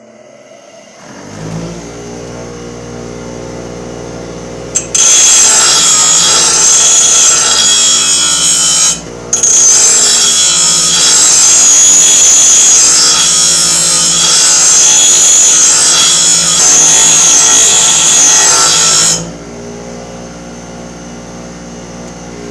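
Bench grinder switched on and spinning up to a steady hum, then a steel lawn mower blade ground against the spinning stone, a loud grinding noise lasting about fourteen seconds with a brief break partway through. After the blade is lifted away the grinder runs on unloaded with its steady hum.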